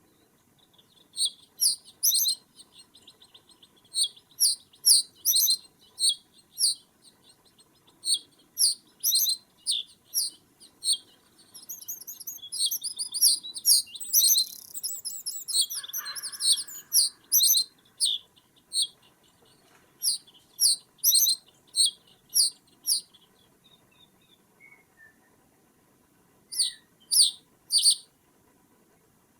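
Small bird calling with short, high, sharp chirps in quick groups of two to four, with a dense run of chirps near the middle and a lower call about halfway through; the chirps pause briefly before a last group near the end.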